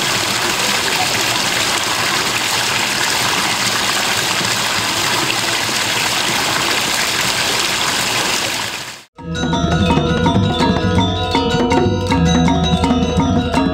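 Rushing water runs as a loud, even hiss for about nine seconds. It cuts off abruptly, and music with drums and pitched percussion begins, struck in a steady rhythm.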